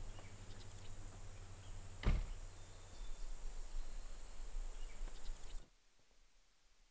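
Outdoor woodland ambience with faint chirps and a low hum, broken by a single heavy thump about two seconds in; the ambience then cuts off abruptly to near silence near the end.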